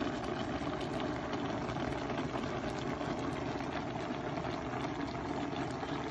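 Vegetable and mushroom stew simmering in a stainless steel pot, its broth bubbling steadily with many small crackles and pops.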